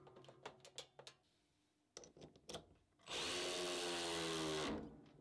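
Makita RW01R1 12V cordless ratchet: a few light clicks, then about three seconds in its motor runs steadily for about a second and a half.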